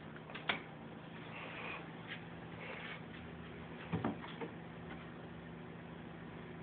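A few light knocks and clatters as a toddler handles books and toys on a wooden bookshelf: one sharp click about half a second in and a short cluster of knocks around four seconds in, over a steady low hum.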